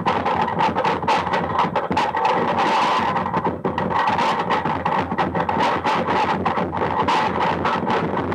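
Harsh experimental noise music from a lo-fi cassette: a dense, distorted wall of crackling noise over a steady midrange tone, stuttering irregularly several times a second.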